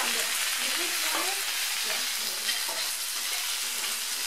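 Food sizzling on an electric gourmet table grill: a steady frying hiss, with faint voices underneath.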